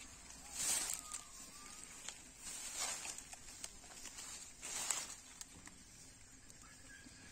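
Grazing cows tearing and chewing grass: three short rustling rips a couple of seconds apart, with faint bird chirps in the background.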